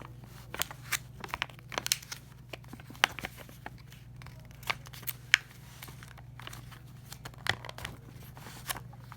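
Staple-free stapler biting into a thick stack of paper: irregular sharp clicks and paper crinkling and tearing as it cuts through and jams. It sticks because there are too many pages.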